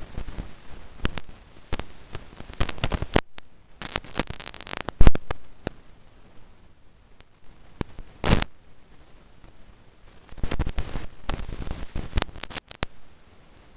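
Irregular clicks and short crackly bursts of clicking from a computer mouse being clicked and handled, with quiet gaps between them.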